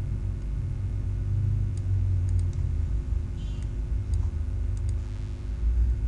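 Steady low rumble of recording background noise with a faint hum, and a handful of faint computer mouse clicks as the folder list is scrolled.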